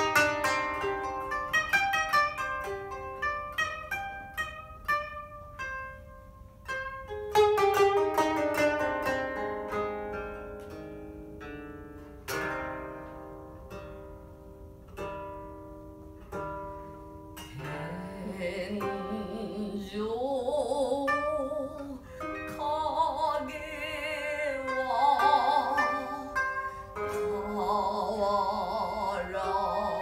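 Koto played solo, a run of plucked notes ringing out one after another; about 17 seconds in, a shinobue bamboo flute and a singing voice enter with a wavering, sustained melody over the koto.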